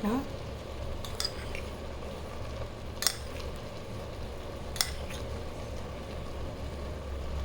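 Metal utensil clinking against a cooking pot a few times, about three sharp clinks spaced a second or two apart, over a low steady hum.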